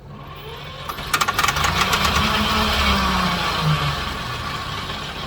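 Long-dormant 1958 Fordson Major diesel tractor engine clattering into life on starting fluid: a burst of sharp knocks about a second in, then a loud, uneven engine run that slowly eases off.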